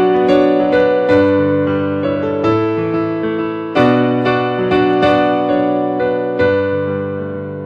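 Keyboard music: an electric piano playing slow chords and melody notes, each struck note ringing and fading before the next.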